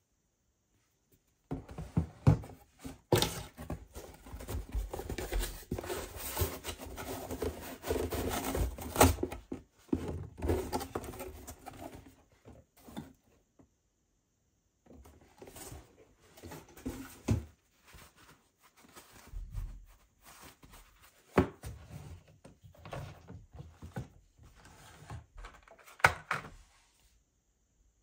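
Plastic bottles and a cardboard box being handled and set down on a wooden tabletop: rubbing and rustling with a few sharp knocks as items are put down, and a short pause midway. The loudest knock comes near the end.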